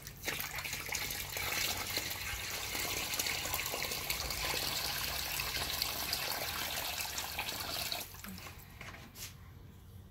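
Water poured from a container into a partly filled foldable PVC dog pool, splashing into the water already there. The steady pour stops about eight seconds in.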